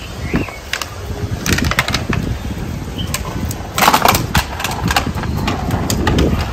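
Labrador retriever growling in play, a low rumbling growl, while tugging on a plastic water bottle, with sharp crackles of the crumpling plastic, loudest about four seconds in.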